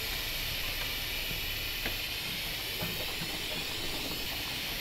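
A miniature 5-inch gauge live-steam locomotive hissing steadily with escaping steam.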